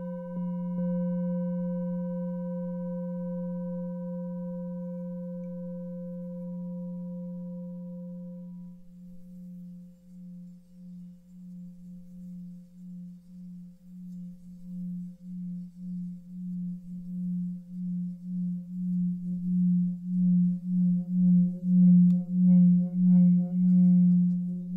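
An 18.5 cm seven-metal singing bowl rings with a deep hum and fainter higher overtones after a strike about a second in, fading over some eight seconds. The tone is then kept going by rubbing the rim, with an even wobble of about two pulses a second that swells louder toward the end.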